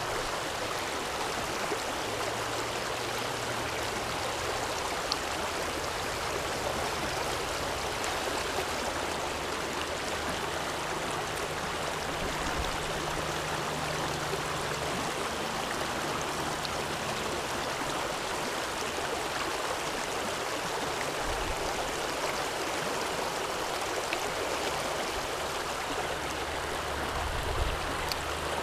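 Small creek running over rocks in a shallow riffle, a steady rushing wash of water.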